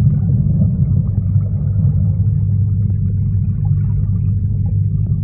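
A loud, steady low rumble with a faint hum above it.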